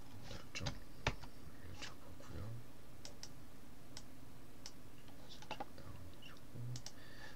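Scattered clicks of a computer mouse and keyboard, the loudest about a second in, over a steady low hum of room or computer noise.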